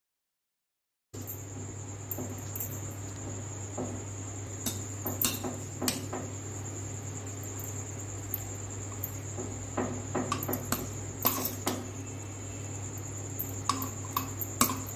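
A metal spoon knocking and scraping against a bowl in scattered clicks as pieces of fried poori are tossed through a thick gravy, over a steady high whine and a low hum. The sound starts after about a second of dead silence.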